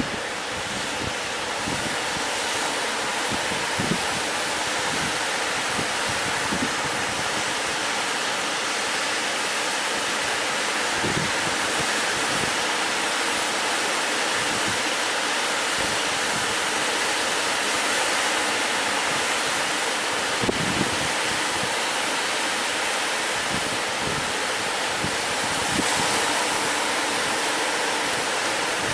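Steady rush of sea surf breaking on the beach, with wind buffeting the microphone in short low rumbles.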